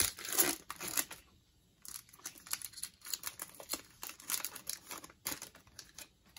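Trading-card pack wrapper crinkling and tearing as it is opened by hand, in a string of irregular crackles with a short pause about a second in.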